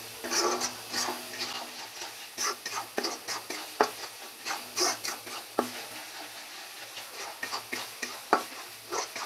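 Metal spatula stirring and scraping a thick spice paste frying in oil in a non-stick pan, with irregular scrapes and clicks against the pan over a faint sizzle. This is the masala being browned (bhuna) until cooked through.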